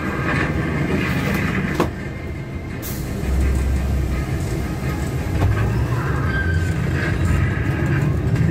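Cabin noise of a moving bus: a steady engine and tyre rumble on a wet road, with a single knock about two seconds in.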